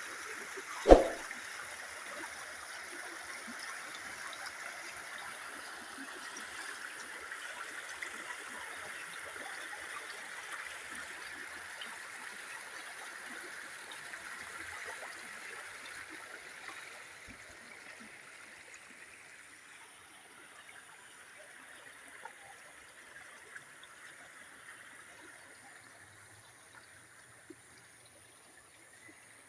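Floodwater rushing and streaming as a steady hiss, fading somewhat in the second half. A single sharp thump about a second in is the loudest moment.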